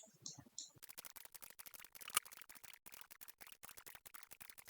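Rapid computer mouse clicks, many per second, with one louder click about two seconds in: points being placed one after another to draw lines in mapping software.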